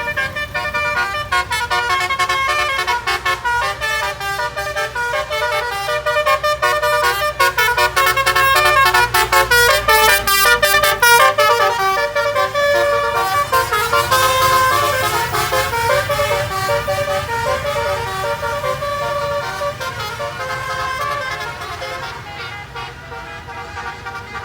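Bus basuri musical air horn (telolet horn) playing a fast, loud melody of changing notes, with a low rumble underneath that drops away about halfway through. The sound fades toward the end.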